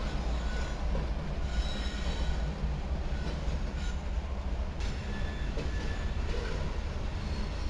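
Freight train passing: steady low rumble of diesel locomotives and rolling cars, with faint thin wheel squeals. About five seconds in, the sound changes to freight cars rolling by.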